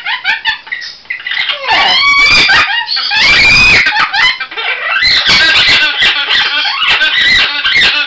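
Pet parrot squawking and screeching loudly, a run of harsh squealing calls, with one long shriek a few seconds in.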